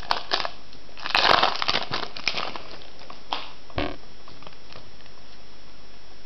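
Foil trading-card booster pack wrapper crinkling as it is handled and opened: a run of rustles over the first two seconds, a few single crackles after, then only a steady background hiss.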